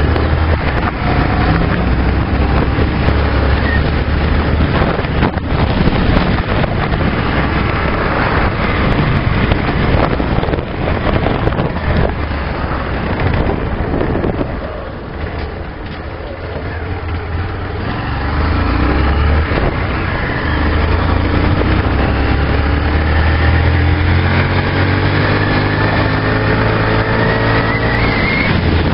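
A Honda CG 125 Fan motorcycle's single-cylinder four-stroke engine runs steadily under way. It eases off and goes quieter around the middle. Through the latter part it picks up again with its pitch rising as it pulls.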